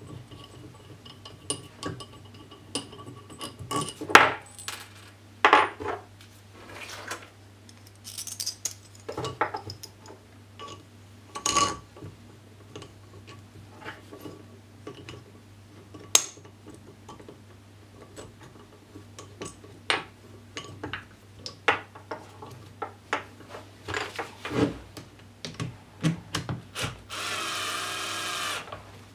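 Metal clamp parts and clamping-lever hardware clicking, clinking and scraping as they are handled and fitted together, in scattered knocks. Near the end a cordless drill-driver runs for about a second and a half.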